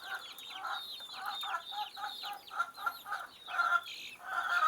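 Flock of young kampung chickens peeping and clucking: a steady stream of short, falling high peeps over quick repeated lower clucks, louder near the end.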